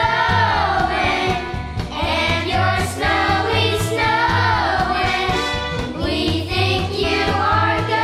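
Children's choir singing a Christmas song over instrumental accompaniment, with a steady repeating bass line under the voices.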